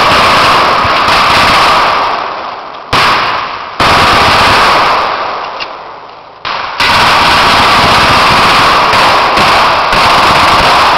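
Loud, dense machine-gun and rifle fire with blank rounds, rapid reports overlapping into a continuous racket. The firing dies away twice, briefly about two seconds in and for a couple of seconds from about four seconds in, then comes back at full intensity.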